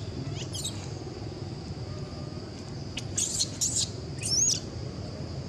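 Infant long-tailed macaque giving short, high-pitched squeaks and cries. One comes about half a second in, a quick run of them about three seconds in, and a squeal that rises then falls about a second later.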